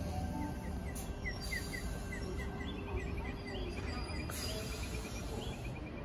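Small birds chirping in quick series of short high notes, a few a second, with a second, higher series joining partway through, over a low steady rumble of station background.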